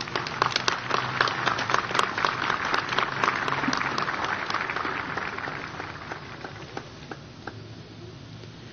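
Audience applauding. The clapping is thick for the first few seconds, then dies away to a few scattered claps about six to seven seconds in.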